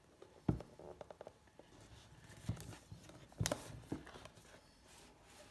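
Cardboard product box being handled and opened: a few knocks and small taps as hands grip it and push the inner tray out of its sleeve, with light scraping of cardboard between them. The loudest knock comes about three and a half seconds in.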